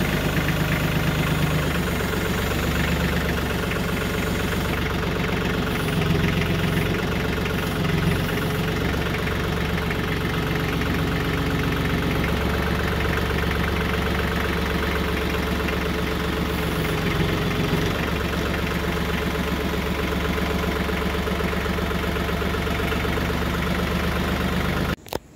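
Branson 2515 compact tractor's diesel engine idling steadily, with small swells in pitch and level as the front loader holds and shifts the brush cutter. It cuts off suddenly near the end.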